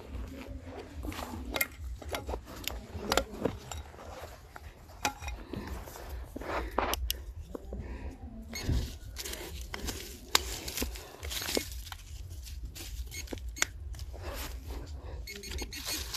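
Irregular clicks and knocks of small hard objects clinking against each other, over a low steady rumble of handling or wind on the microphone.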